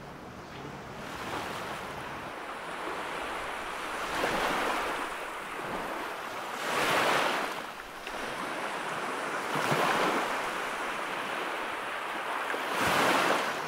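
Small waves washing onto a sandy beach, the surf swelling and fading about every three seconds.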